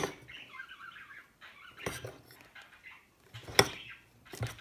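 A metal utensil stirring thick, wet slime in a plastic bowl: soft sticky squelching broken by a few sharp clicks as the utensil knocks the bowl.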